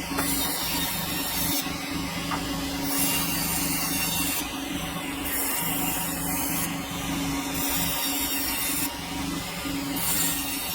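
Sawmill running and cutting a hardwood log: a steady motor hum under the hiss of the blade in the wood, the hiss coming and going about every second and a half.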